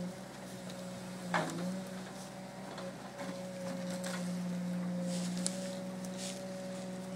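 Engine of a small tracked Prosilva forwarder running steadily while its hydraulic crane swings a log. A sharp knock about a second and a half in, with the engine note dipping briefly, and a few lighter knocks and rattles later.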